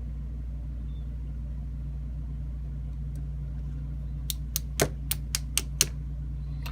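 A steady low hum, then about seven quick sharp clicks over a second and a half near the end: small pin-tumbler lock pins from a disassembled lock cylinder clicking out and dropping onto a hard surface.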